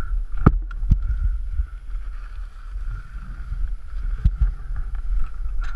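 A Honda CRF250L dirt bike going down on slippery clay: three sharp knocks, about half a second in, just before a second in and again past the middle, over a steady low rumble of wind buffeting the helmet-camera microphone.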